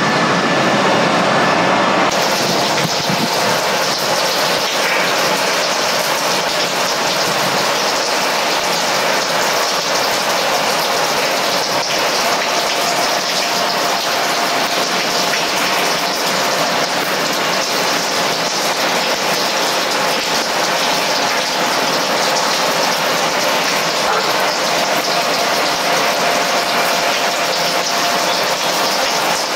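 Airbus A330's Rolls-Royce Trent 700 jet engines running steadily: an even, loud rushing hiss with a faint steady whine. The sound changes abruptly about two seconds in.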